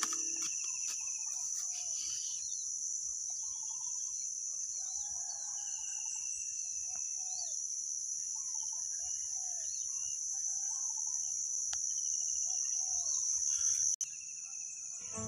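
A steady high-pitched insect chorus, with several birds calling over it: short chirps and trilled calls that fall slightly in pitch, repeated a few times. The sound cuts out abruptly for an instant about 14 seconds in.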